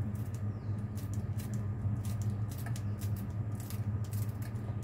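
Kitchen scissors snipping fresh red chilies into pieces, a quick run of crisp snips about three a second, over a steady low hum.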